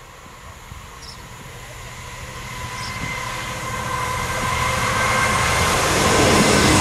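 Class 66 diesel locomotive (EMD two-stroke V12) hauling a freight train as it approaches, its engine and wheel rumble growing steadily louder, with a thin steady high whine over the rumble.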